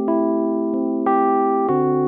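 Background music of slow, held keyboard chords, with a new note or chord struck three or four times.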